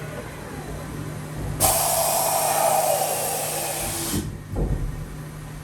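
Mori Seiki NH6300 DCG horizontal machining center running with a steady low hum. About a second and a half in, a loud rushing hiss starts suddenly, lasts about two and a half seconds and cuts off sharply.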